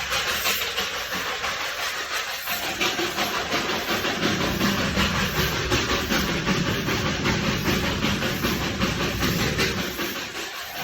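Darjeeling Himalayan Railway steam toy train running, with a steady steam hiss. A low rumble of the running train comes in about three seconds in and fades near the end.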